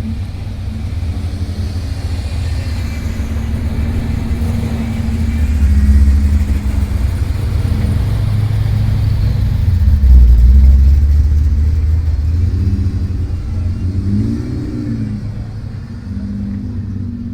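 Big-block V8 car engine running with a deep low rumble that swells louder about six seconds in and again about ten seconds in. Near the end the engine is blipped, its pitch rising and falling.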